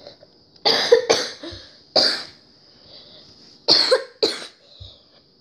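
A person coughing about five times in short fits: a pair about a second in, one at two seconds, and another pair near the end.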